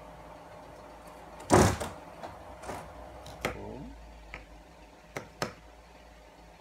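Clicks and knocks of a mobile phone's small parts and a tool being handled on a work surface during disassembly: one sharp, loud knock about a second and a half in, then several lighter clicks spaced over the next few seconds.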